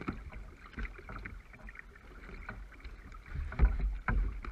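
Double-bladed kayak paddle stroking through the water from an inflatable kayak: irregular splashes and drips with low rumbling, and two louder thumps near the end.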